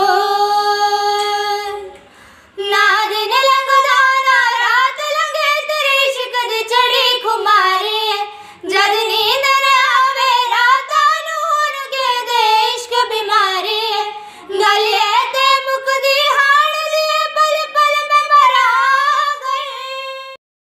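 Two young women singing a Hindi song together without accompaniment, in high, long phrases with brief breaks between them; the singing stops abruptly near the end.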